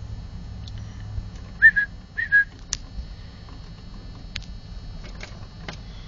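Two short whistled notes about half a second apart, each a quick upward flick that settles on one pitch: a person whistling to call birds to food held out. A few faint sharp clicks follow.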